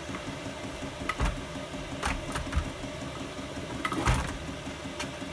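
Knocks and clunks of a motorcycle cylinder head being turned over and handled on a metal workbench, a few separate strikes with the loudest cluster about four seconds in. A steady mechanical hum runs underneath.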